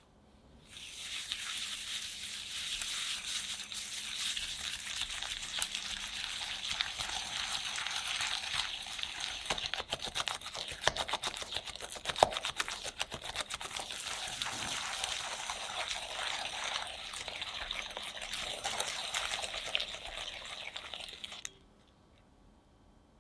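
A silicone-coated balloon whisk beats softened butter with sugar and salt in a glass bowl, creaming it until pale and fluffy. It makes a steady scraping swish with a run of quick clicks against the glass in the middle, and stops suddenly near the end.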